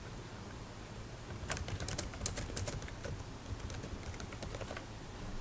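Typing on a computer keyboard: a run of quick, irregular key clicks that starts about a second and a half in and thins out near the end, over a faint steady hum.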